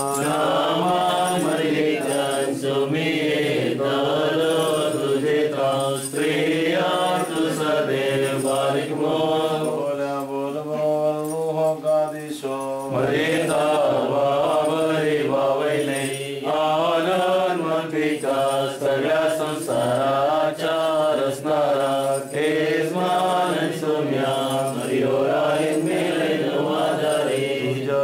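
Voices chanting an Orthodox liturgical hymn, continuous and wavering in pitch, with a brief pause about halfway through.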